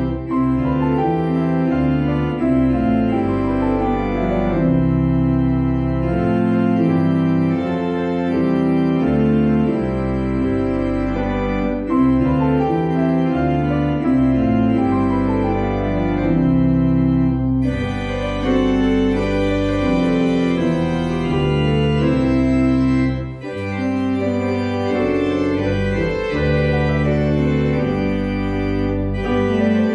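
Church organ and grand piano playing a piece together: sustained organ chords over a moving bass line, with the piano alongside. The chords break off briefly about 23 seconds in, then carry on.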